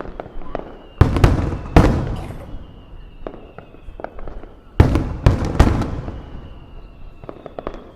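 Aerial fireworks shells bursting in quick succession: two loud booms about a second in, three more around five seconds in, and smaller crackling pops in between.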